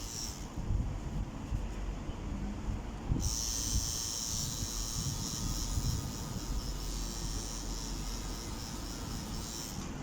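Electric tattoo machine buzzing as it works, stopping about half a second in and starting again just after three seconds, over a low background rumble.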